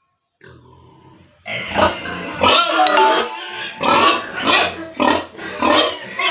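Pigs squealing and grunting. After a brief dropout at the start, loud calls come in quick succession from about a second and a half in.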